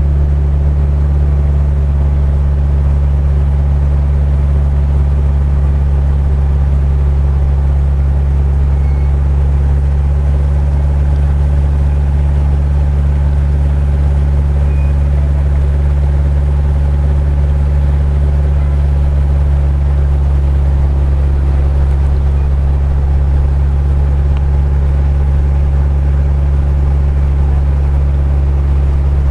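Motorboat engine running steadily at cruising speed, a loud, unbroken low drone.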